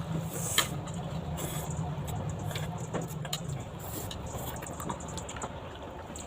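Small clicks and taps of chopsticks against a bowl while eating noodles, one sharper click about half a second in. A steady low hum runs underneath and stops about three and a half seconds in.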